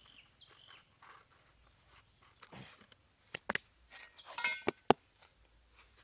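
Hands working a plastic bottle and cardboard: small scrapes, then a few sharp clicks, a short crinkling rustle and one loud click in the second half.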